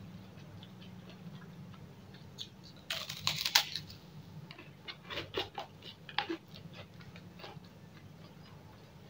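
Crunching of a crispy white kerupuk cracker being bitten: a burst of loud crunches about three seconds in, then scattered crunches of chewing for a few seconds.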